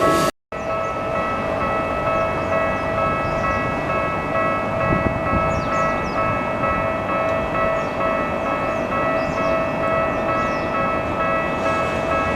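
Railway level-crossing warning alarm ringing steadily over the rumble of a Keikyu 1000 series train. The sound drops out for an instant near the start.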